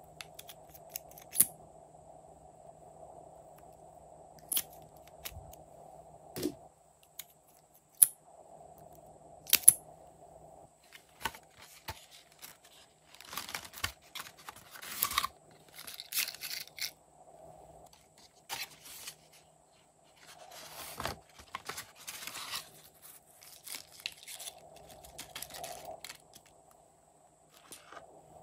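Close-up handling of small plastic and paper slime props: a handful of sharp plastic clicks spaced a second or two apart, then two longer stretches of rustling and crinkling, over a faint steady hum.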